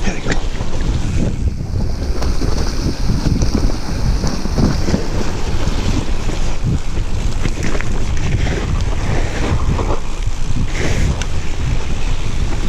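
Wind buffeting the microphone while a mountain bike rolls down a rough, rocky trail, a steady loud rushing rumble from air and tyres on the ground, with scattered knocks and rattles from the bike over the bumps.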